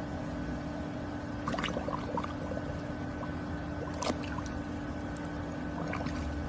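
Shallow pool water sloshing and splashing as a golden retriever lying in it noses at a toy ball and dips its face in, with a few sharp splashes about a second and a half, four and six seconds in, over a steady low hum.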